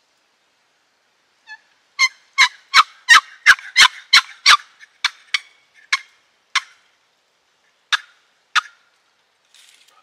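Turkey calls: a fast run of about eight sharp, loud notes, roughly three a second, starting about two seconds in, then a handful of single notes spaced further and further apart.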